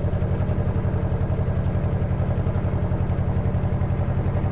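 Narrowboat's inboard engine running steadily under way, with an even low chugging pulse several times a second. The engine has no sound insulation or padding underneath yet, which the owner says makes it fairly noisy.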